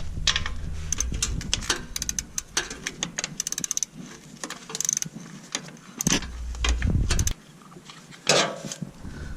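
Ratchet wrench clicking in quick runs as a 19 mm plug is loosened, with scattered metal clicks and taps between.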